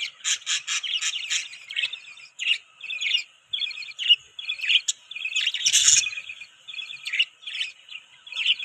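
Budgies chirping in quick runs of short, high calls.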